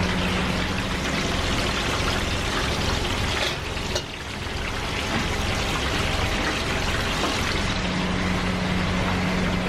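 Steady hissing noise of street-stall wok cooking, dipping briefly about four seconds in, with a steady low hum coming back in the second half.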